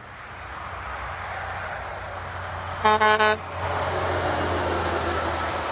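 Western Star 4964F dump truck's Hadley H00978 air horn giving one short toot of about half a second, broken twice, near the middle. Before and after it the truck's diesel engine and tyres are heard growing louder as it passes.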